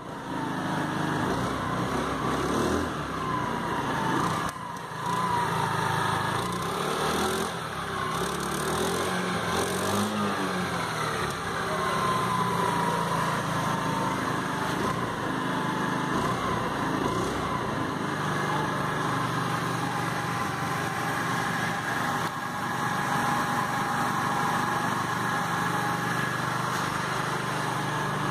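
Hero Maestro Edge scooter's single-cylinder four-stroke engine idling steadily. It gets a couple of brief throttle blips in the first ten or so seconds, the clearest about ten seconds in.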